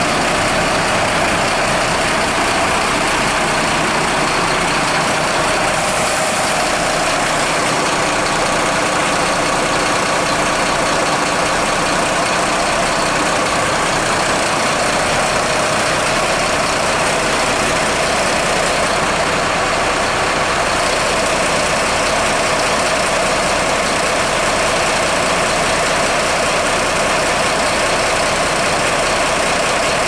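Mercedes-Benz fire truck diesel engine idling steadily.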